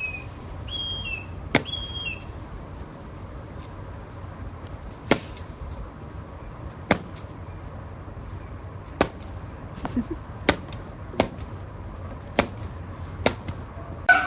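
A bird, most likely a parrot, gives three short falling chirps in the first two seconds. Then come about ten sharp taps or knocks at uneven intervals, the loudest sounds here, over a steady low hum.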